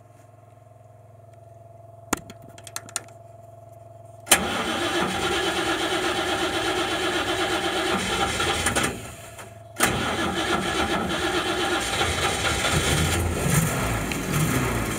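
Cold start of an M29C Studebaker Weasel's six-cylinder flathead engine on choke: after a few quiet seconds of the electric fuel pump's faint steady hum and some clicks, the engine catches with a sudden loud start, runs unevenly, dies for about a second, then fires again and keeps running with its speed rising and falling as the carburetor linkage is worked. The stumble is a matter of choke, which the owner thinks was either too little or too much.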